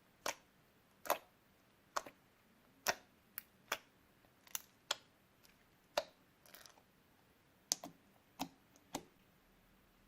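Slime being mixed by hand, making about a dozen sharp, irregularly spaced clicks and pops.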